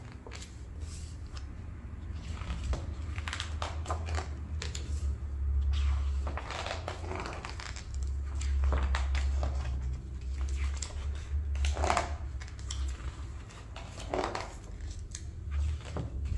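Pages of a large hardback photography book being turned one after another: dry paper rustling and crackling as each sheet is lifted and laid over, every couple of seconds, over a low rumble.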